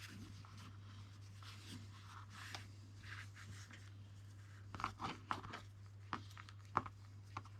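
Faint handling noises of paracord being worked: scattered soft scratches and clicks, a few sharper ones in the second half, over a steady low hum.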